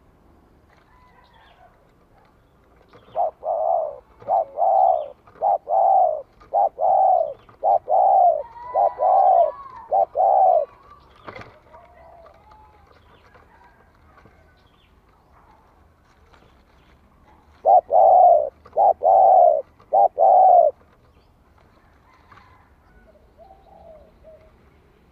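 Spotted dove cooing in two bouts: a run of about a dozen short coos over some seven seconds, then after a pause a shorter run of about five. Faint chirps of other birds and a single click fall between the bouts.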